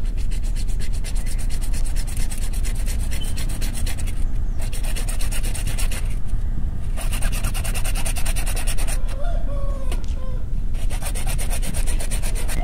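Hand-held hacksaw blade cutting through a 1.5-inch CPVC plastic pipe in fast, even strokes. It pauses briefly about four, six and nine seconds in.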